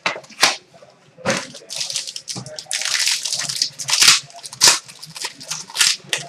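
Crinkling and tearing of a trading card pack's wrapper being opened by hand: a run of rustling bursts with a few sharp snaps.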